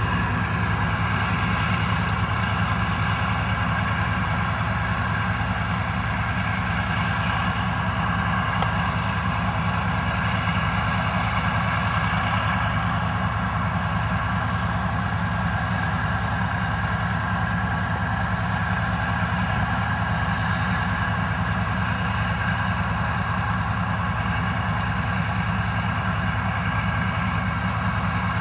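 Engines at a fracking well site running steadily, a loud, unchanging drone with a fast even throb underneath.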